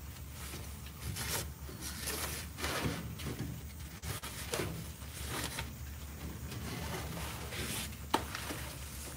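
A series of fabric rustles and handling noises from a jacket brushing close against the phone's microphone as the person shifts about, with a sharp click about eight seconds in.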